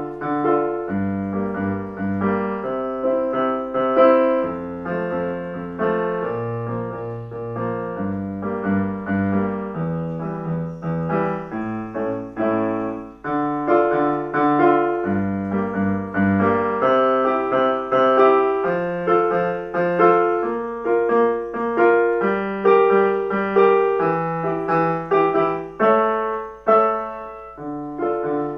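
Piano music playing slow chords over a bass line, with a steady low hum underneath.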